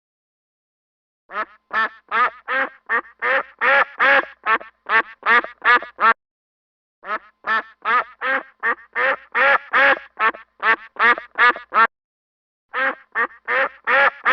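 Duck quacking in quick repeated calls, about three a second, in three runs broken by short pauses.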